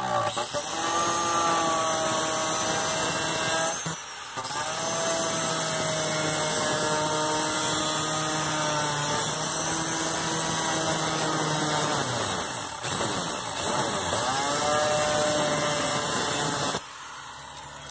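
Electric angle grinder with a thin cut-off wheel cutting a shallow slot in a car's sheet-steel floor pan. Its whine sags in pitch as the wheel bites and recovers as the load eases. It lets up briefly about four seconds in and again later, then stops shortly before the end.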